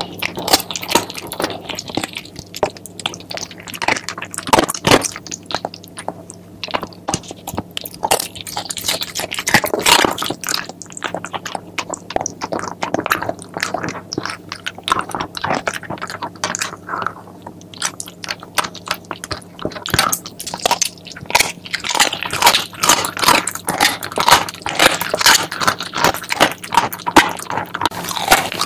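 A Shiba Inu chewing and crunching a chicken foot: irregular runs of sharp bites and crunches that come most thickly near the end.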